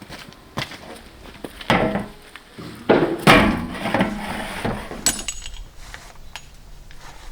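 A series of irregular wooden knocks and clatter, heaviest a little past halfway, with a sharper clink that rings briefly about five seconds in.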